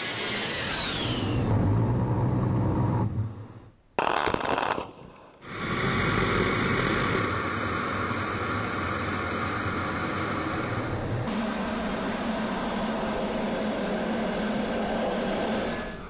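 An A-10 Thunderbolt II's twin turbofan engines. The jet passes with a falling whine over the first few seconds, then, after two short breaks, gives a steady jet roar and airflow noise as heard from the cockpit.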